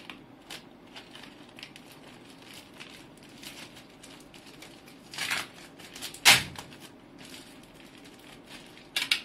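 Plastic courier mailer crinkling as it is slit and pulled open with a snap-off utility knife, with small clicks and rustles throughout. A louder tearing rasp comes about five seconds in and a sharper, louder one about a second later.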